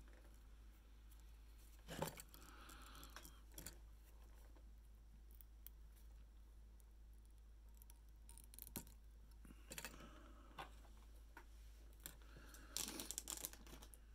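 Faint, sparse clicks and rustles of hands handling fly-tying tools and thread spools at a vise. There is a sharper click about two seconds in and a quick run of clicks near the end.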